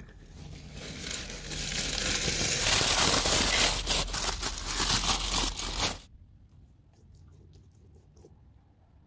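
Aluminium foil crinkling and rustling as it is pulled off a roasting pan, building over the first few seconds and stopping suddenly about six seconds in.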